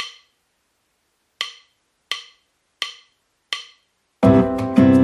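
Background music: a sharp wood-block-like tap, then four more evenly spaced at a quick pulse, like a count-in. About four seconds in, a full tune with plucked and strummed guitar comes in.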